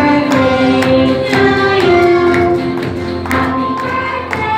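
A group of young children singing a song together over musical accompaniment with a steady beat of about two strokes a second.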